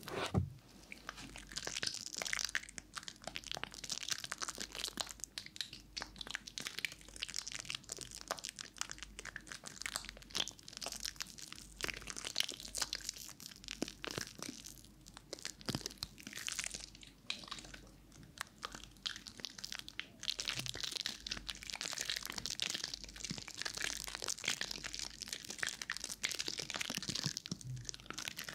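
Soap-lathered hands rubbing and squishing together close to a binaural microphone: a dense, continuous wet crackle.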